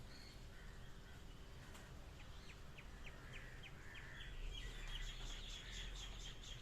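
A bird calling in a series of short chirps, about three or four a second at first, then faster and louder from about two-thirds of the way in, over faint steady background noise.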